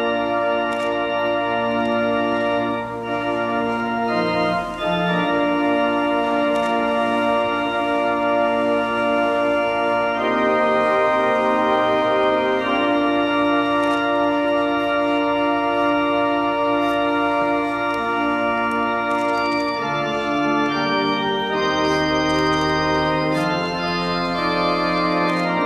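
Organ playing slow music of long held chords that change every few seconds: processional music for the bride's entrance.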